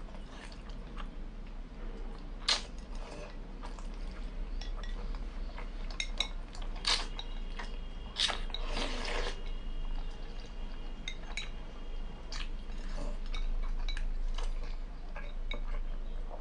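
Eating at close range: chopsticks clicking against a ceramic bowl and noodles and boiled eggs being chewed, with a longer slurp from the tipped bowl about halfway through.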